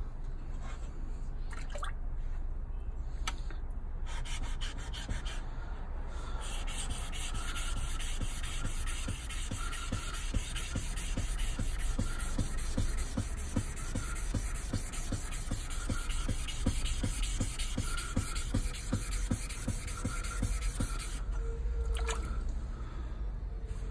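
A steel hand-plane blade rubbed back and forth on a wet whetstone, in an even rhythm of gritty strokes, as the blade is sharpened. A few light clicks come before the strokes start, and the strokes stop near the end.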